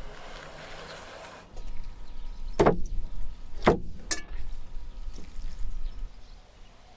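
Raw cuts of meat being moved from a metal tray into a wooden bowl: two heavy knocks about a second apart, then a lighter, sharper click.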